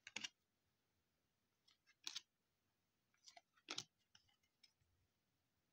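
Faint, sparse clicks of football trading cards being flicked through by hand, the card stock snapping as each card is slid off the stack. The clicks come a second or two apart.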